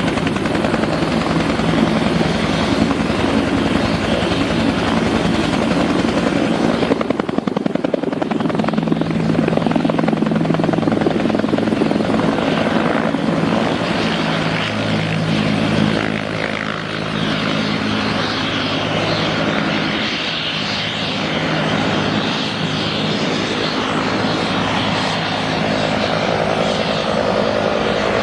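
Bell 205A-1 (civil UH-1H Huey) helicopter at takeoff power, its two-bladed main rotor beating steadily over the whine of its Lycoming T53 turboshaft as it lifts into a hover and climbs away.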